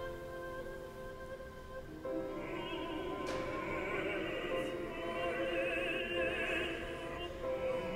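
Mixed choir singing held chords. About two seconds in the chord changes and higher voices come in, singing with vibrato.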